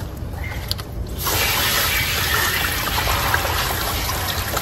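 Garden hose spray nozzle starting about a second in and then spraying water steadily onto water hyacinth plants, rinsing them over a tub of water.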